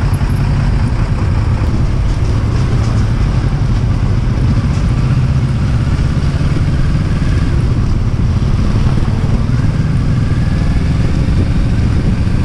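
Motorcycle engine running steadily under way, heard from on the bike itself.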